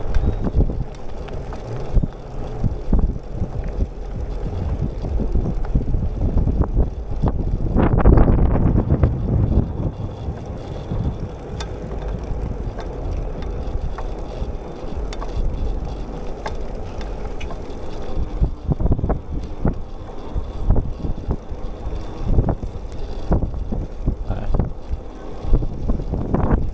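Wind buffeting the microphone of a camera on a moving bicycle, with tyre noise and small clicks and rattles from the bike. A stronger gust comes about eight seconds in.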